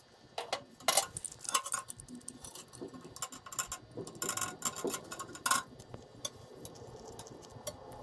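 A mini tube cutter being fitted onto and turned around a thin aluminum tube to cut it, giving a run of small, irregular metallic clicks and scrapes. The clicks thin out in the last couple of seconds.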